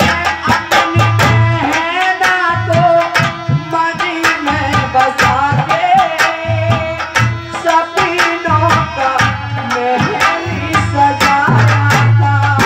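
Live Indian folk devotional music. Hand drums keep a steady beat under a wavering melody line, with sharp, bright percussion strokes throughout.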